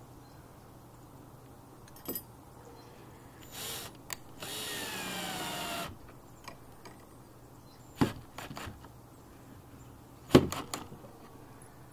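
Ryobi cordless drill/driver driving screws into a wooden gate to mount a metal gate latch. A short burst comes first, then a run of about a second and a half whose whine drops in pitch as the screw bites. Two sharp knocks with brief rattles follow near the end, the second the loudest.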